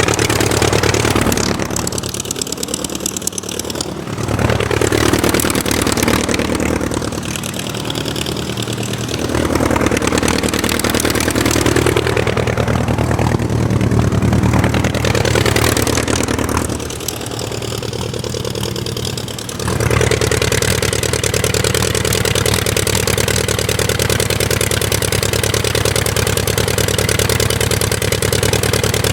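Aircraft engine running, its pitch and loudness sagging and picking up again a few times before it settles into a steady drone for the last third.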